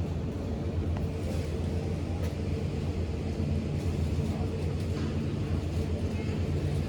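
Steady low rumble of a running vehicle, with a constant hum and a few faint clicks.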